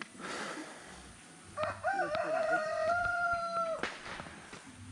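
A rooster crowing once, a crow about two seconds long: a short broken start, then a long held note that cuts off sharply.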